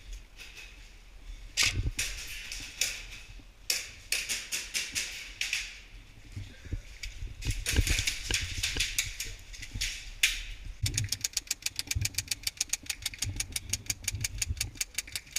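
Scattered sharp cracks and clicks, then about eleven seconds in a fast, even rattle of roughly nine shots a second: an airsoft gun firing a long full-auto burst.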